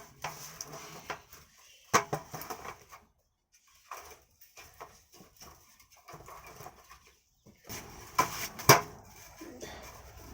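Irregular knocks and clatter with rustling between them, as furniture such as a table is handled and set up; the sharpest knocks come about two seconds in and twice near the end.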